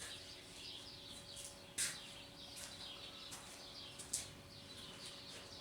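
Faint bird chirps over a steady low hum, with two short sharp knocks, one about two seconds in and one about four seconds in.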